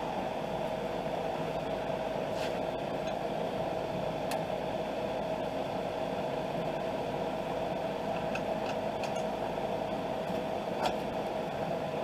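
Steady background machine hum with one constant whine, and a few faint clicks and taps as metal suspension parts are handled.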